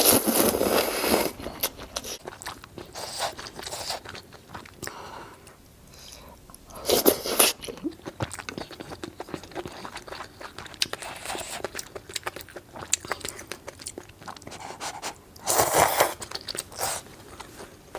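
Close-miked eating sounds of a person eating hot luosifen rice noodles: steady chewing, with three louder noisy bursts at the start, about seven seconds in, and near the end.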